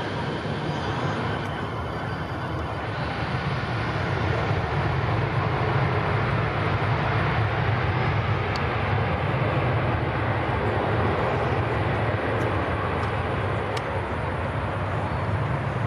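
Jet airliner engine noise: a steady low rumbling rush that grows a little louder about four seconds in and holds.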